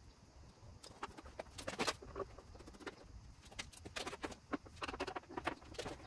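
Scattered sharp clicks, light knocks and small rattles from hand work on a scooter's front plastic body panels and fittings, coming irregularly, several at a time in places.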